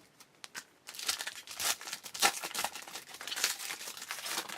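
Foil wrapper of a baseball card pack crinkling and tearing as it is opened by hand, starting about a second in with scattered small clicks before it.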